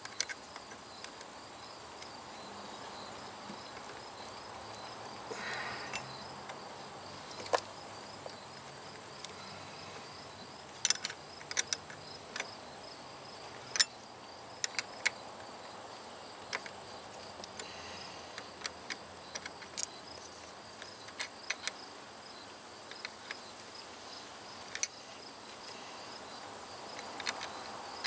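Scattered sharp metal clicks and taps of a hand wrench on a car battery's cable terminal as the cable is fastened back on. Behind them, insects chirp in a steady high pulsing drone.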